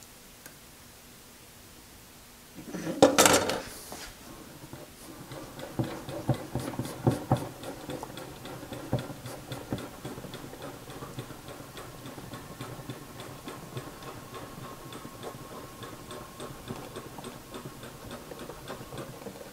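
Router table fence being slid along the table by hand, driving a friction-wheel mechanical readout, with a steady run of light regular ticks and scattered knocks. A short clatter about three seconds in as a steel rule and square are set down on the table.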